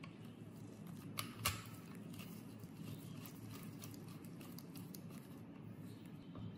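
Screwdriver backing a small screw out of a metal blower cover: a string of small metallic clicks and scrapes, with two sharper clicks about a second and a half in, over a low steady hum.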